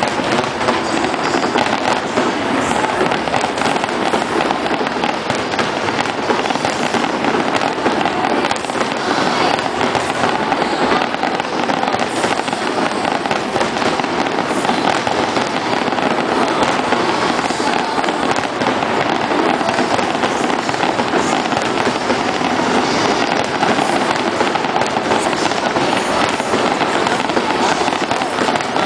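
Fireworks display going off without a break: a dense, continuous crackling and popping from shell bursts and crackling stars.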